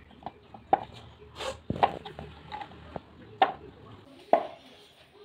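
A few sharp knocks and taps on a wooden board as hands pinch pieces off a log of dough and set them down, with soft handling sounds in between.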